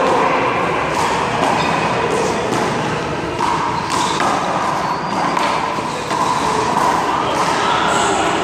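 A one-wall handball rally: a small rubber handball is struck by hand and smacks against the wall and ground in a string of sharp hits about a second apart, over a steady hubbub of background voices.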